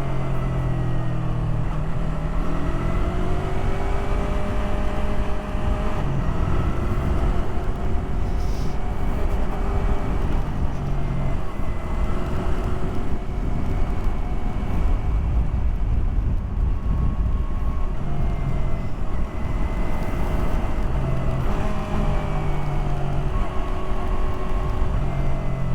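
Yamaha R3's parallel-twin engine running while the bike is ridden, its pitch rising and falling several times as the rider rolls on and off the throttle, over a steady low rumble.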